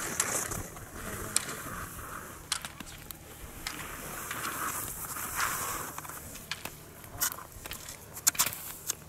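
Slalom skis scraping and carving through soft snow, the hiss swelling and fading with each turn, with sharp clacks from gate poles being knocked aside, several in quick succession near the end.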